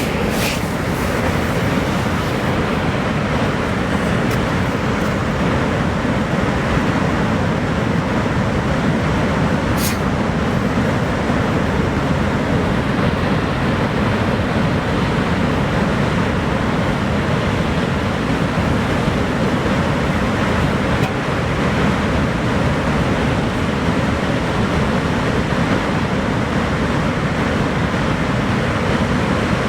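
Water pouring over Niagara Falls: a steady, dense rush of falling water without let-up.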